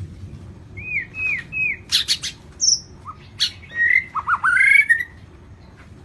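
White-rumped shama singing a varied phrase. It begins with three quick arching whistles, then sharp clicky notes and a high note, and runs into a tumbling warble that stops about a second before the end.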